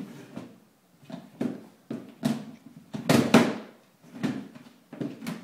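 Plastic food storage box with a snap-on lid knocking and rattling as a cat paws and pushes at it, in a run of irregular knocks, the loudest a little after three seconds in.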